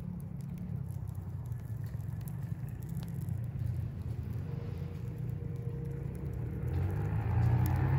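Wind buffeting the microphone as a low rumble that grows louder near the end, over a wood fire burning in a hobo stove and crackling faintly.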